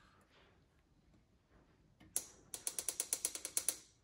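Ratcheting clicks from a glue-pull dent lifter being worked to draw a glue tab on a dented motorcycle fuel tank. A single click comes about two seconds in, then a quick even run of clicks, about ten a second, for just over a second.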